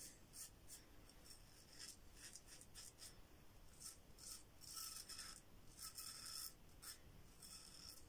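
Adjustable safety razor with a Treet 7 Days Platinum blade scraping through a week's stubble under shaving lather: a run of short, quiet rasping strokes. It cuts without tugging.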